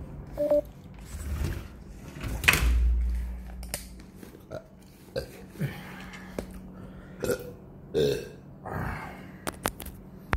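A person burping about two and a half seconds in, amid scattered clicks and knocks of a phone being handled close to its microphone.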